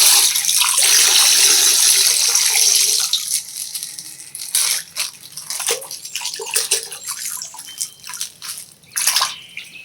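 Coloured water gushing and splashing out of a punctured plastic ice bag for about three seconds. Then thin plastic crinkles and tears, with scattered sharp crackles, as the bag is ripped open.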